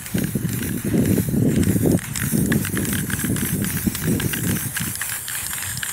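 Aerosol spray can hissing as a gloss spray coat is sprayed over a paper relief picture, while wind buffets the microphone in heavy, uneven low rumbles.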